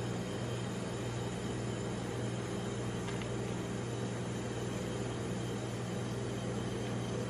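Steady mechanical hum from the rolled-ice-cream machine's refrigeration unit running under the cold plate, with a faint tick about three seconds in as a cracker is set down on the metal plate.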